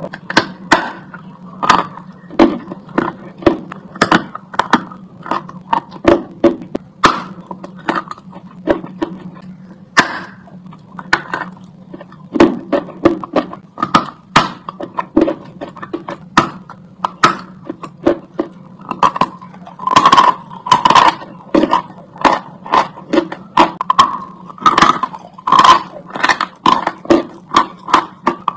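Dry chalk being bitten and chewed close to the microphone: a run of sharp crunches, about one to two a second, coming thicker in the second half, over a steady low hum.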